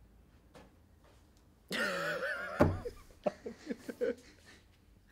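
A man laughing: a drawn-out, wavering vocal sound, a soft thump, then a string of short chuckles.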